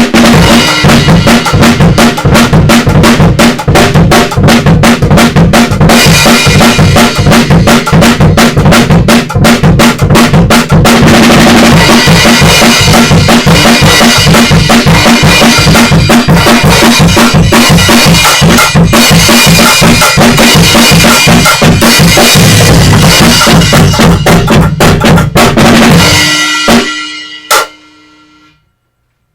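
Mini drum kit played with sticks in a fast gospel praise-break groove: rapid bass drum and snare strokes under cymbals. It stops about 26 seconds in and the drums and cymbals ring out for a couple of seconds.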